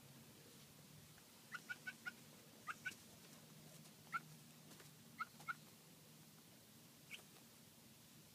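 A chicken giving short, soft pitched calls, about ten in all, some in quick runs of two to four, over a faint low hum.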